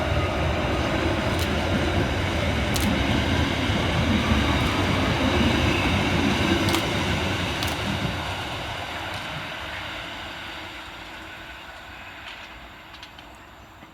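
Two coupled Merseyrail Class 777 electric multiple units running through the station as they depart: a steady rumble of wheels and traction noise with a few sharp clicks, which fades away over the last six seconds as the train draws off.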